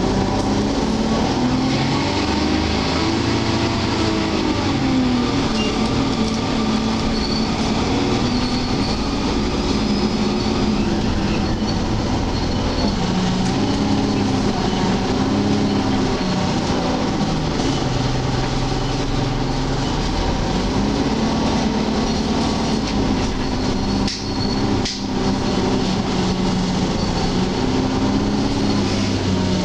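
Interior noise of an Alexander Dennis Enviro 300 single-deck bus on the move. The engine note rises and falls several times as the bus pulls away and slows in traffic, with a faint high-pitched screech at times from the bus itself.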